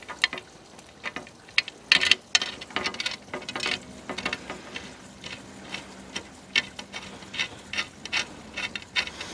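Bolts being put in by hand and finger-tightened into the bar's frame: irregular small clicks, taps and scrapes of the fixings and parts being handled.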